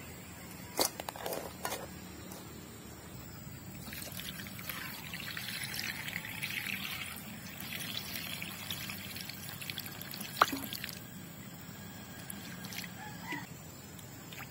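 Water poured from a plastic bottle into a metal pot holding live mud crabs, running for about five seconds. Near the start there are knocks of the crabs set down against the pot, and later one sharp click.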